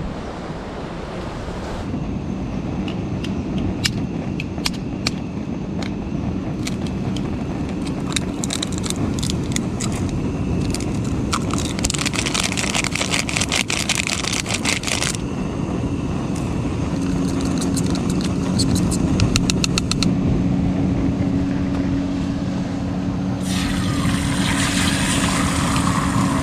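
A portable camping stove running with a steady low hum, with many light clicks of a utensil against the pot in the first half and two stretches of hiss about halfway through and near the end.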